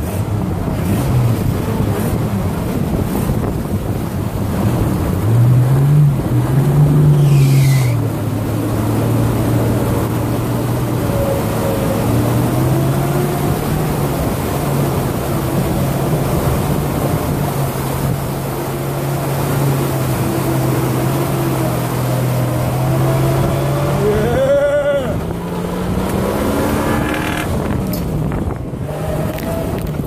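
A lifted Jeep with a 4.0-litre straight-six engine fording a river: the engine pulls steadily under load over the rush and splash of water thrown up by the front tyre. The engine note climbs a few seconds in, holds steady, then climbs again near the end as the Jeep comes out onto dry gravel.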